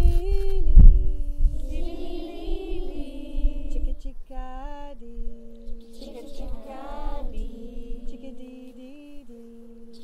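A woman's voice singing a slow, wordless call-and-response song, holding long notes and stepping between pitches. Low rumbling in the first second.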